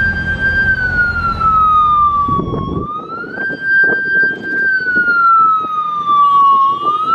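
Motorcycle siren in a slow wail, rising, holding and falling about every four seconds, over a low engine rumble that cuts off about three seconds in.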